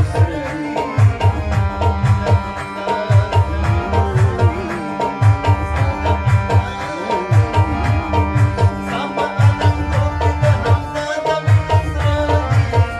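Harmonium playing a melody over sustained reed notes, accompanied by a steady rhythm of deep hand-drum strokes, in a Pashto folk piece.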